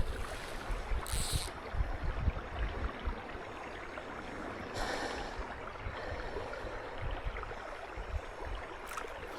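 Wind buffeting the microphone in irregular low thumps, with two brief soft hisses, about a second in and again about five seconds in.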